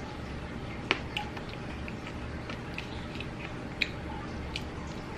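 Crispy fried chicken being picked apart by hand and chewed: scattered small crackles and clicks, the sharpest about a second in and again near four seconds.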